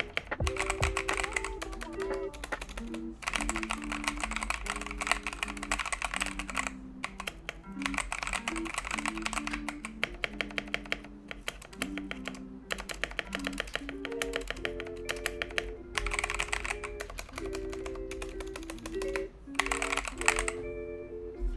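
Fast typing on a foam- and tape-modded mechanical keyboard fitted with Akko CS Jelly Purple tactile switches: dense runs of keystrokes broken by short pauses, over background lo-fi music.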